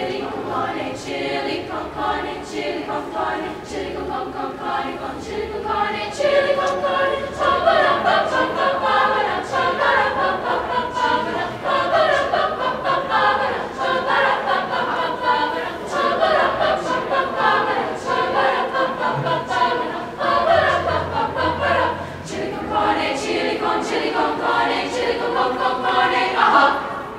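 Women's choir singing vocal jazz a cappella, many voices in close harmony, with short clicks at a steady pace under the singing.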